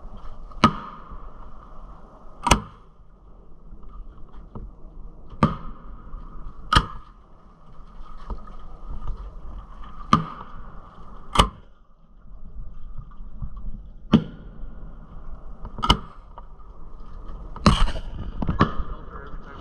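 Aerial fireworks shells going off: about ten sharp bangs at uneven gaps of one to three seconds, many falling in pairs, each with a short echoing tail.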